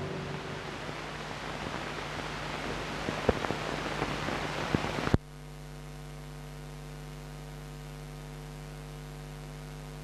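Hiss and crackle of an old film soundtrack with a few sharp clicks, cutting off suddenly about five seconds in to a steady electrical mains hum.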